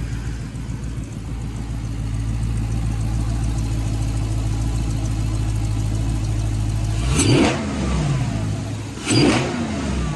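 6.4-litre (392) HEMI V8 idling, breathing through a newly fitted Mopar cold air intake, then revved twice in short blips about two seconds apart near the end.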